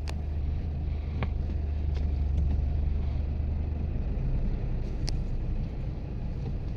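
Steady low rumble of a car in motion, engine and road noise as heard from inside; the deepest part of the rumble eases about four seconds in.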